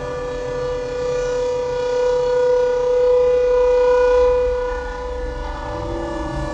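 Film score: a sustained electronic drone of several held tones, its chord shifting about two-thirds of the way through.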